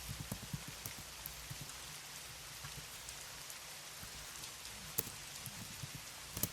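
Soft computer-keyboard typing, in short runs of muffled key taps near the start and again near the end, with a sharper click about five seconds in, over a steady background hiss.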